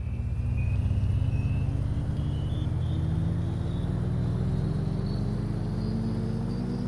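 A motor vehicle accelerating: a low rumble whose pitch rises slowly and steadily, with a fainter high whine climbing along with it.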